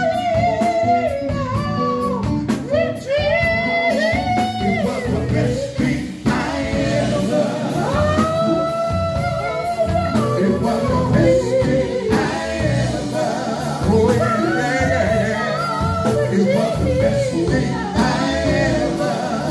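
Live gospel singing with a backing band: sung lines drawn out and sliding between notes over keyboard, bass and drums.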